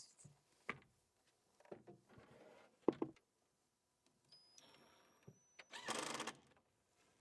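Faint, scattered knocks and taps of cabinet parts being handled and fitted, the loudest about three seconds in. Near the end, a small power tool motor whines up and runs briefly for about half a second.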